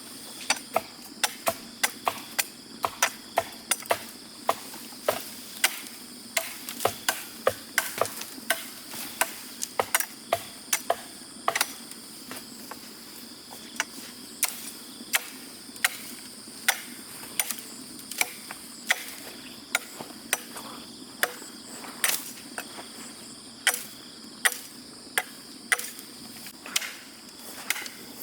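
Repeated sharp knocks from a hand tool striking wood or similar, irregular, about one to two a second and of uneven strength. Under them is a steady high chirring of insects.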